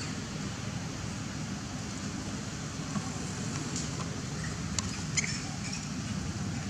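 Steady low outdoor background rumble, with a few brief high clicks or chirps about three seconds in and again around five seconds in.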